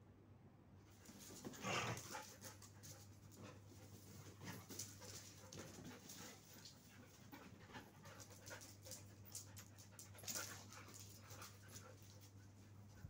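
A dog panting faintly, with scattered soft clicks and two louder bursts of noise, about two seconds in and near ten seconds; a steady low hum underneath.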